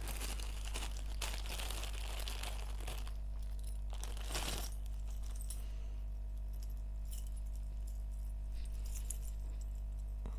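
Rustling and small metallic clicks as earrings are picked up and handled, busiest in the first few seconds with a brief louder rustle about halfway, over a steady low hum.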